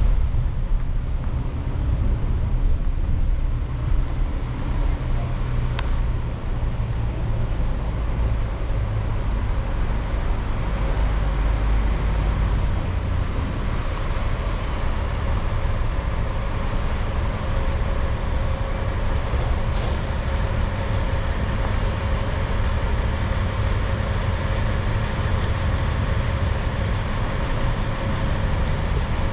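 Steady engine and road noise of a car driving through city traffic, with a short click about twenty seconds in.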